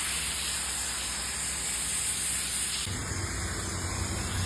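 Pressure washer jet spraying water onto Birkenstock sandals: a steady hiss of spray. About three seconds in, a low hum joins the hiss.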